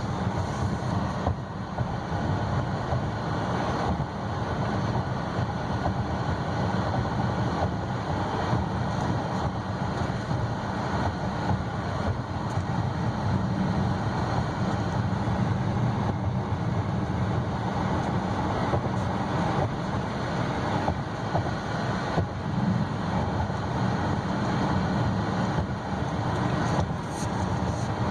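Steady road and tyre noise with low engine hum, heard inside the cabin of a 2016 Buick Envision driving along at speed.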